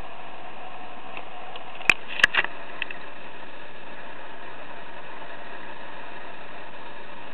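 Steady hiss, with a handful of short sharp clicks about two seconds in, two of them loud: the controls of a Sony A55 camera being pressed and handled as its menu is changed.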